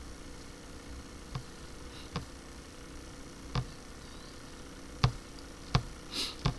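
Computer mouse clicking six times at uneven gaps of about a second over a faint steady hum, with a brief hiss shortly before the end.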